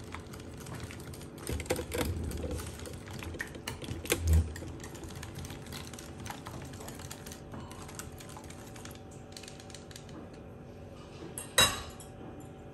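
A metal spoon stirring thick yogurt in a ceramic bowl: a quick, uneven run of small clicks and scrapes against the bowl. One louder clack comes near the end.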